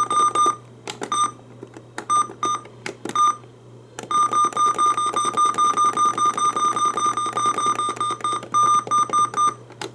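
NOAA weather radio receivers sounding their alert alarms during a Required Weekly Test. A shrill, rapidly pulsed beep, several beeps a second, comes in short scattered bursts at first and then runs almost without a break from about four seconds in until just before the end. A steady low hum sits underneath.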